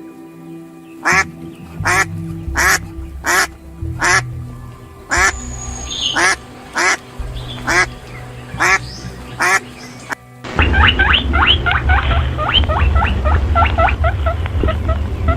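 A duck quacking about a dozen times at even spacing, over soft background music. About ten seconds in this cuts off abruptly to a dense run of rapid high squeals over a low rumble.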